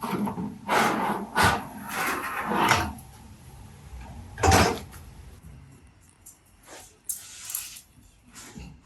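Sheet-metal flashing being worked on a metal bending machine: a run of clunks and rattles, with one loud clank about four and a half seconds in, then fainter knocks.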